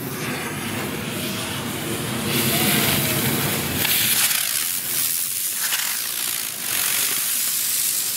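Phantom Fireworks Stack Attack aerial novelty spraying sparks with a loud hiss, which grows louder about two seconds in, with a few sharper cracks.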